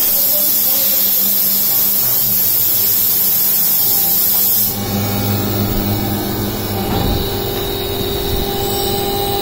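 CNC vertical milling machine cutting grooves in a white plastic plate, with coolant spraying. A loud, steady hiss of spray covers the first four and a half seconds and cuts off suddenly, leaving the machine's steady hum with a few held whining tones.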